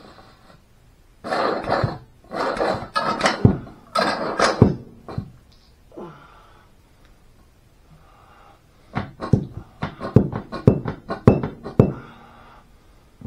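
Mini Kobelco excavator's boom cylinder, its piston rod worked hard in and out of the barrel by hand to free the piston. Several rushing strokes of rod and oil come first, then from about nine seconds in a quick run of sharp metal clunks.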